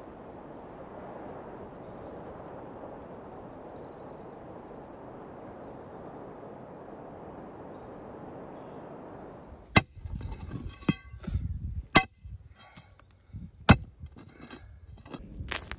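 A steady rushing outdoor hiss for the first ten seconds, then a metal bar digging into stony soil in a pit: three loud ringing clangs about two seconds apart, with thuds and scrapes of earth and stones between.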